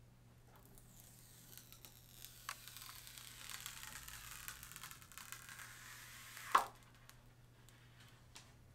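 Protective plastic film being peeled off a tablet screen: a faint crackling hiss with small clicks that builds for several seconds and ends in one sharp snap as the film comes free.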